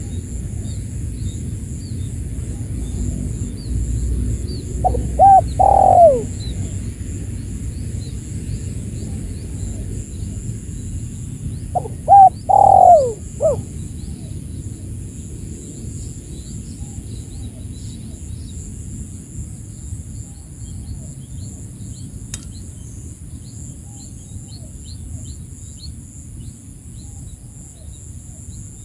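Spotted dove (tekukur) cooing, used as a lure call to draw rival doves. There are two loud coo phrases, about seven seconds apart, each ending in a falling note, followed by fainter calls.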